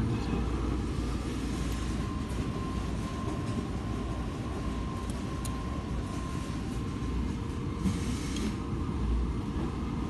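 Primus commercial washing machine on its final spin: a steady rumble from the spinning drum, with a faint high whine in the middle.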